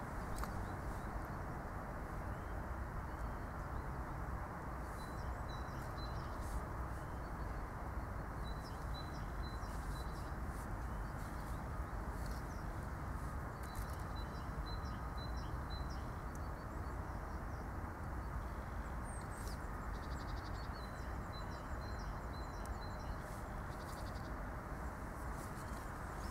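Outdoor winter ambience: a steady background noise, with small birds giving short, high chirps now and then.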